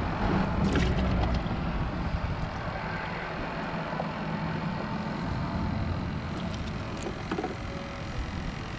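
Steady rumble of road traffic crossing the bridge overhead, with a few small splashes as a hand scoops live shrimp and baitfish in the water of a bait bucket, about a second in and again near seven seconds.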